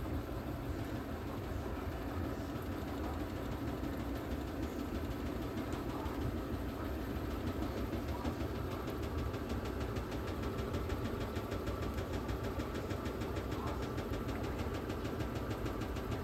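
Electrolux Ecologic LEC12 top-loading washing machine spinning, a steady motor hum with a fast, even ticking rattle. The owner puts the rattle down to a loose wire beside the pressure switch knocking against the machine.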